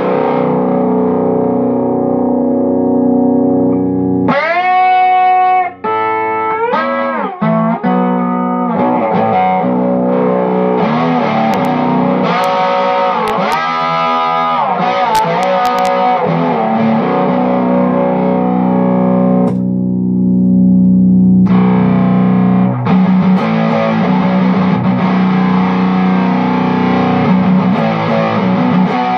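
Electric guitar with a Bare Knuckle Black Dog bridge pickup, played through a Mesa Boogie F30 amp with an overdriven, snarly tone: sustained riffs and lead lines, with notes bent up and down in pitch several times.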